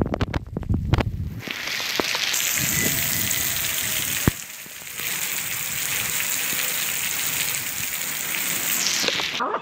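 Heavy rain falling steadily on a cobblestone street, a dense even hiss. There is a low rumble in the first second and a single sharp click about four seconds in.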